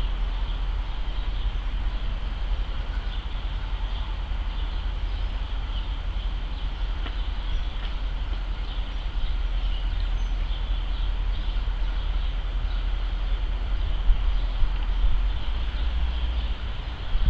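Low, steady rumble of a jet airliner passing high overhead, with a couple of brief louder bumps near the end.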